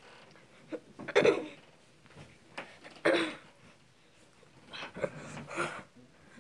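A boy's short vocal grunts, loudest about a second in and three seconds in and again near five seconds, with bumps and rustling as he wrestles a large plush teddy bear up onto his shoulders.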